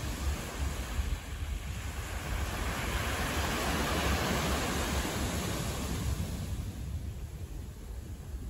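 Wind buffeting the microphone as a steady low rumble, with a broad rush of noise that swells through the middle and fades away again.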